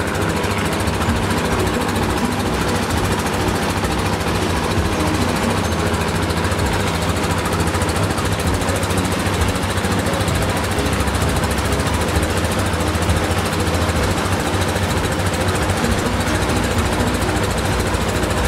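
Motorboat engine running steadily under way, a fast, heavy chugging, with a steady rush of water along the hull.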